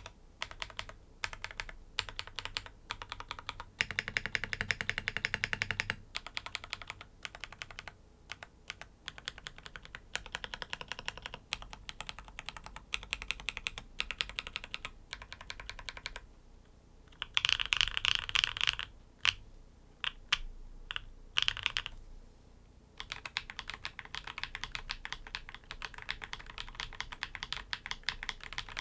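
Typing on a Keychron NEO80 mechanical keyboard with tactile switches in a sandwich mount: fast runs of key presses broken by short pauses, with slower, single keystrokes near the middle.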